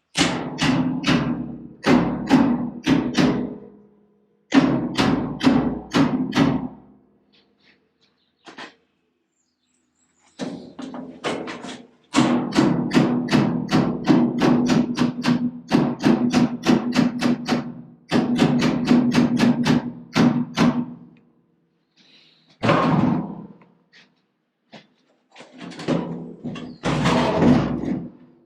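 Hammer blows on a sheet-steel panel, about four or five a second in runs of a few seconds with short pauses, the longest run near the middle. The steel is being hammered into shape for a tractor nose cone.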